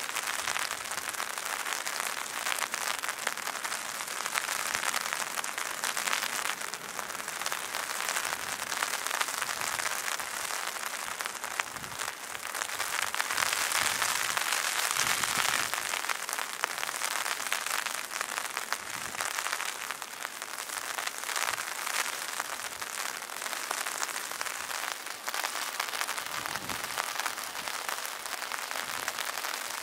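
Heavy rain falling: a steady hiss of patter with fine close drop ticks, heaviest about halfway through.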